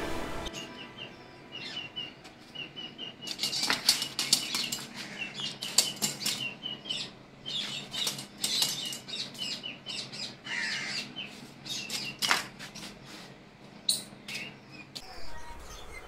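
A rat caught in a small trap, struggling on brick paving: the trap clatters and scrapes in quick irregular clicks, with short high chirps repeating through much of it.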